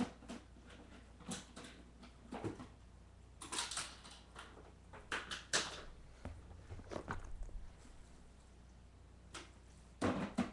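Objects being handled and moved about: scattered knocks, clicks and rustles at irregular intervals, thickest between about three and a half and six seconds in, with a short low rumble after that and a sharper knock near the end.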